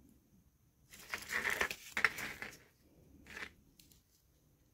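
Costume jewelry pieces being handled and sorted, with a rustling handling noise for about two seconds starting a second in and a shorter rustle near three and a half seconds.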